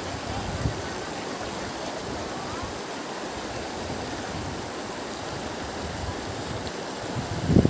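Steady rushing of a river's flowing water.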